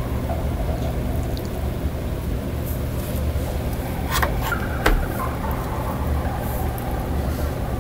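Steady low rumble, with two or three sharp clicks about four to five seconds in.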